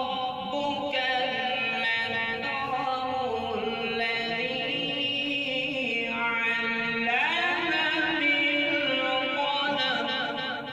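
A man reciting the Quran in a melodic chant, holding long drawn-out notes. About seven seconds in, his voice rises sharply into a higher, ornamented phrase.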